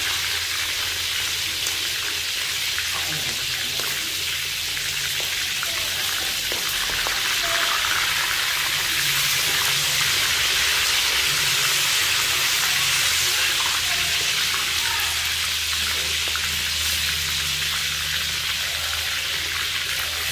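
Whole frogs deep-frying in oil in a large wok, the oil sizzling steadily, with a low hum beneath.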